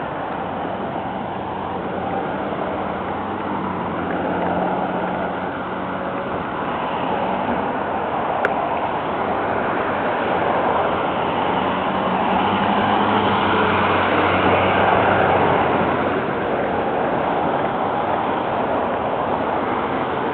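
Street traffic noise: a steady hiss of passing cars with engine hum that swells as vehicles go by, loudest about two-thirds of the way through, and one sharp click near the middle.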